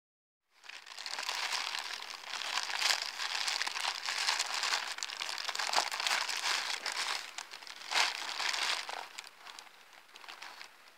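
Thin plastic postal mailing bag crinkling and rustling as it is handled and opened by hand, with a few sharper crackles; it quietens about nine seconds in.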